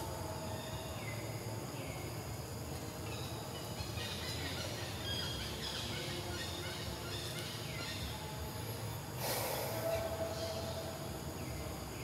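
Outdoor forest ambience: a steady low rumble with scattered short, high, falling chirps through most of the stretch, and a brief burst of noise a little after nine seconds in.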